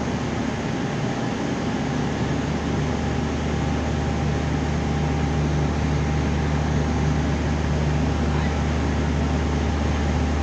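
Steady low machine hum under an even rushing noise, unchanging throughout.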